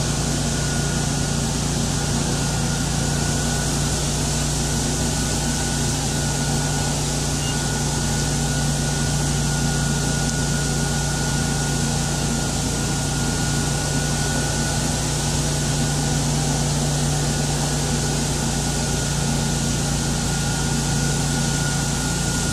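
Buffalo Turbine Cyclone truck-mounted debris blower running steadily at full blast. A rush of air over a low engine hum carries a steady high whine, as it blows leaves off the roadside.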